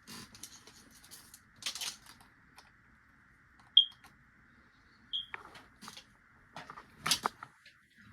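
Handling noises as objects are moved about on a workbench: scattered clicks and rustles. Two brief high-pitched chirps come about four and five seconds in, and a louder cluster of clicks comes near the end.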